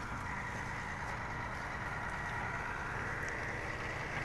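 Truck-mounted borewell drilling rig running: a steady low engine throb with a faint, high, steady whine over it.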